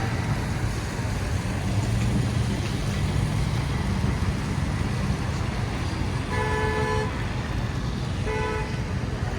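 City street traffic rumbling steadily, with a car horn honking twice in the second half: one longer honk, then a shorter one.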